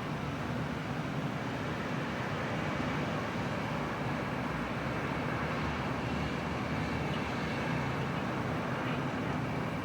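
City street traffic ambience: a steady, even rumble of passing vehicles with no siren or horn.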